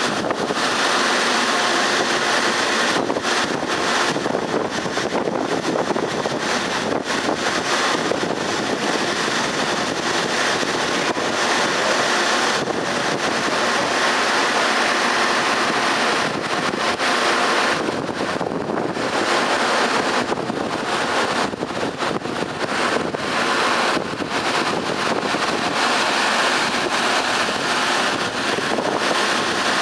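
Steady wind noise on the microphone, a constant rushing hiss that drops away briefly now and then.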